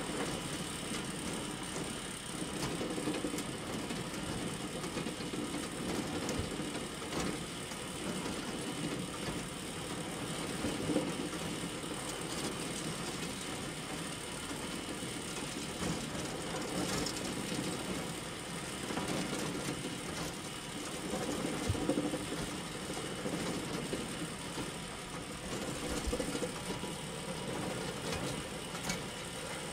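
Steel wire ring making machine running steadily: wire drawn through straightening rollers and bent by coiling rollers, giving a continuous mechanical running noise with a few faint clicks.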